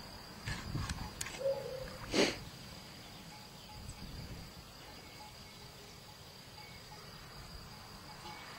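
Insects chirring steadily on one high note, faint. A brief sharp noise sounds about two seconds in, with a few faint clicks before it.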